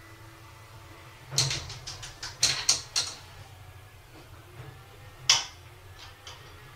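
Wooden cupboard doors held shut by a child lock rattling and knocking as kittens paw and pull at them: a run of clatters lasting about two seconds, then one sharp knock, the loudest, later on.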